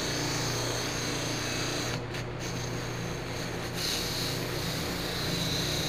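Electric bench buffer running with a stainless steel trim strip pressed against its buffing wheel: a steady motor hum under a rubbing hiss as the trim is polished. The rubbing grows brighter a little before four seconds in.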